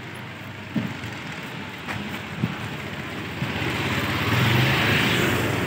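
Street traffic with a motor vehicle passing close by: engine hum and tyre noise swell about three and a half seconds in, peak, and fade away.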